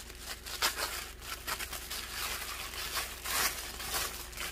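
White paper wrapping printed in red crinkling and rustling as it is handled and unfolded from around a small box: a steady stream of short, irregular crackles.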